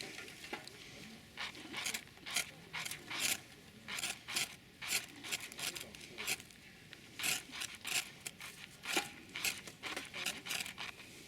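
Repeated short scraping or rubbing strokes, irregular, about one or two a second.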